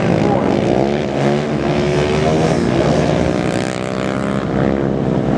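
Racing quad ATV engines revving on a dirt track, their pitch rising and falling as they accelerate and back off.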